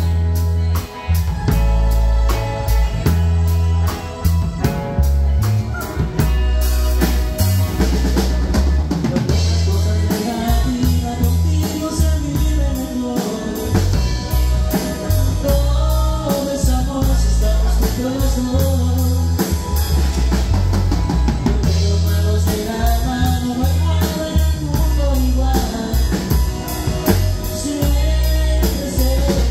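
Live band playing a dance tune with a steady beat: electric bass, electric guitar, drum kit and hand percussion, with voices singing over much of it.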